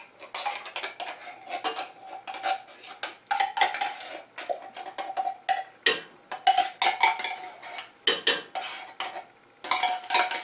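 A spoon scraping and knocking condensed cream of chicken soup out of a tin can into a steel pot: many quick metallic clinks and taps, some leaving a short ring.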